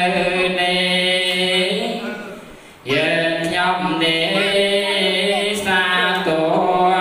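A man chanting solo into a microphone, unaccompanied, in long wavering held notes. The chant fades for a breath about two seconds in and starts again about three seconds in.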